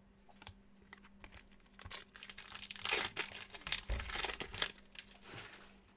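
A trading card pack wrapper being torn open and crinkled by hand, in an irregular run of rustling that starts about two seconds in and fades out shortly before the end.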